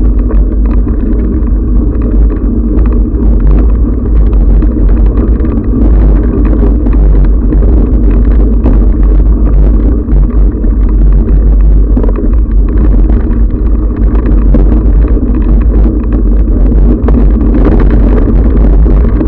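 Loud, steady rumble of wind buffeting and riding vibration on a mountain bike's action-camera microphone as the bike rolls along a dirt singletrack, with many small knocks and rattles from bumps in the trail.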